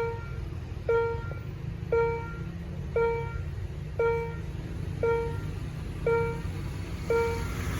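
Railway level-crossing warning bell ringing about once a second, each strike a single pitched ding that fades quickly, over a low, steady rumble.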